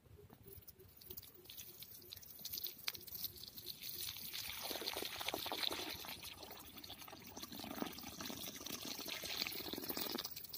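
A stream of water poured onto sandy soil, splashing and pooling into a puddle around the base of a plant. It grows louder about four seconds in and stops shortly before the end.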